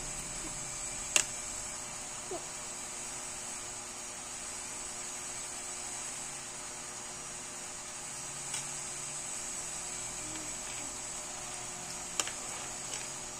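A metal spoon clinks sharply against a ceramic plate a few times, loudest about a second in, again late on, over a steady background hiss.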